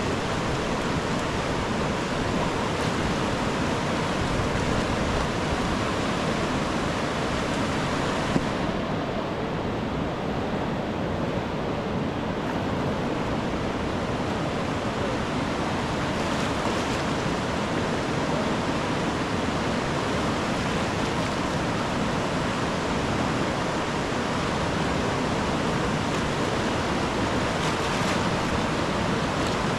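A large river rushing steadily, an even wash of water noise without a break. A single brief click comes about eight seconds in.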